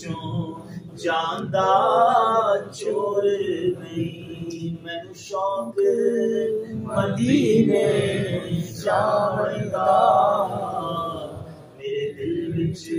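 A man singing a devotional Punjabi kalam (naat) unaccompanied, in long held, wavering phrases with short pauses for breath.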